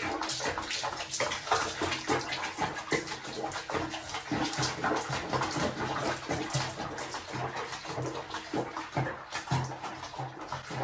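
Bathwater sloshing and splashing in a small basin around a cat sitting in it, with many small splashes and drips throughout.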